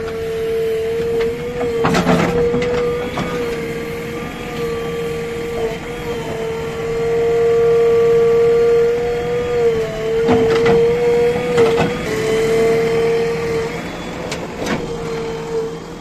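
JCB 3DX backhoe loader digging with its backhoe bucket: diesel engine and hydraulics working under load with a steady high whine. A few knocks come from the bucket and arm near the start, twice around the middle, and near the end.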